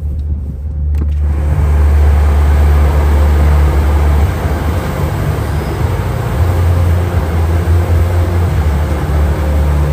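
Car wash machinery running, heard from inside the car: a loud, steady low rumble with a dense rushing hiss that comes in about a second in.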